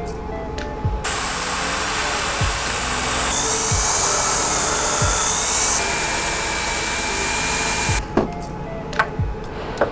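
Jigsaw cutting through a fiberglass-skinned plywood seat, running for about seven seconds: it starts abruptly about a second in and cuts off sharply. It sounds brighter and harsher in the middle stretch. Soft background music plays underneath.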